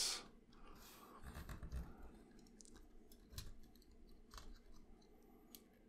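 Faint, scattered clicks and rubbing of a plastic Transformers action figure's parts being handled and pushed into place.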